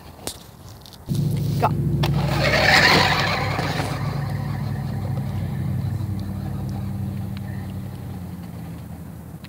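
A vehicle motor starts humming suddenly about a second in, swells with a rushing hiss over the next couple of seconds, then slowly fades away.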